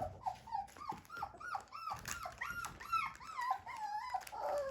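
Young puppy whining: a rapid string of short, high-pitched cries, about four a second.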